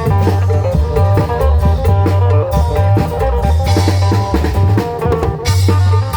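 Isan klong yao band music played live: drums with a heavy low bass line under a plucked-string melody, with cymbal crashes about four and five and a half seconds in.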